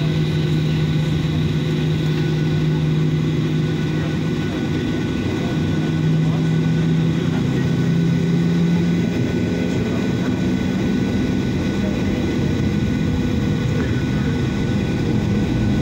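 Airliner's jet engines running steadily at low power as the plane taxis, heard inside the cabin as a constant hum with a thin high whine; the hum shifts slightly in pitch a few seconds in.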